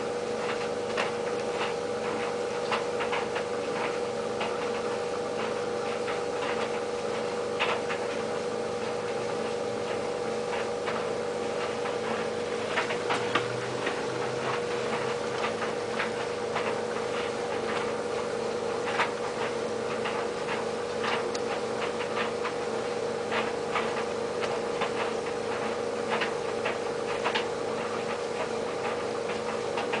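White Knight CL432WV tumble dryer running on low heat with a load of acrylics. Its motor gives a steady hum, and light irregular ticks and taps come from the clothes tumbling in the drum.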